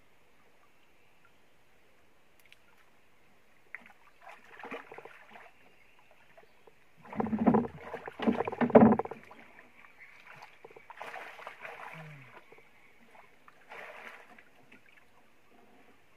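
Water splashing and sloshing at the side of a wooden boat, with a burst of heavier splashes about seven to nine seconds in and smaller splashes before and after.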